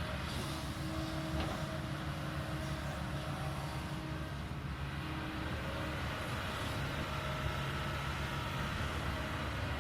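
Kobelco 220 excavator working, its diesel engine running steadily, with a few held hums that fade in and out as the load shifts.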